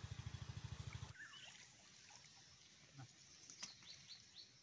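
Near silence. A faint, fast, low throb cuts off about a second in, leaving quiet outdoor background with a few faint short high chirps and small ticks.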